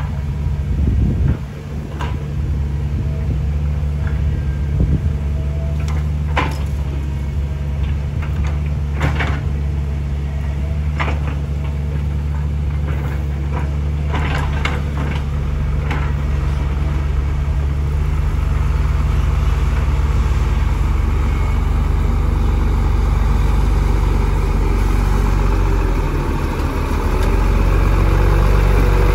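Diesel engines of an excavator and a Hino dump truck running steadily while the excavator loads soil and branches into the truck's steel bed, with sharp knocks and clatters of the bucket and load striking the bed several times over the first half. Near the end the truck's idling engine is close and louder.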